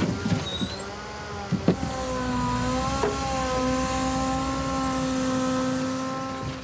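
Truck-mounted timber crane working, its hydraulic drive giving a steady whine that rises slightly about two seconds in and then holds. There are two sharp knocks, one about one and a half seconds in and one about three seconds in.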